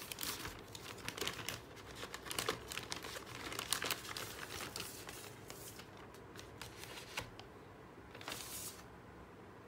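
Thin plastic bag crinkling and rustling as it is pulled off a cardboard cake box, dense at first and thinning out, with one last short rustle near the end.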